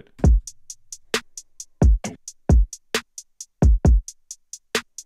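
Programmed drum loop playing back from a beat: deep kick drums that drop in pitch, sharp snare hits and quick, bright hi-hats ticking between them in a bouncy pattern.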